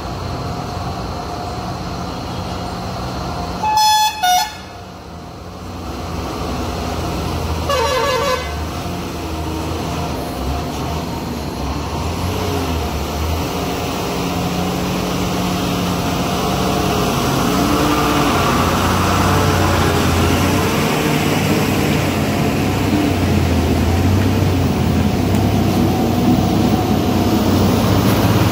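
Diesel engines of heavily loaded multi-axle tipper trucks running under load, growing louder as an Ashok Leyland tipper draws close near the end. A horn sounds twice in quick short blasts about four seconds in, and a horn-like sound comes once more around eight seconds.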